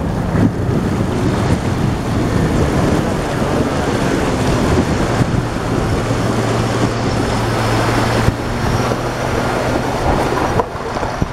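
Toyota Land Cruiser's engine running steadily under load as the 4x4 wades through a shallow river ford, water splashing and rushing against the body and tyres; the sound drops a little near the end as the truck comes out onto gravel.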